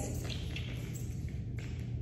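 Steady low hum with a few faint taps and rustles.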